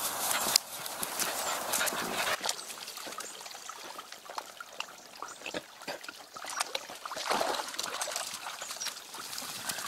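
A pack of West Siberian Laika dogs moving about on rough, grassy ground: scattered rustles and footfalls with brief dog noises, and no sustained barking.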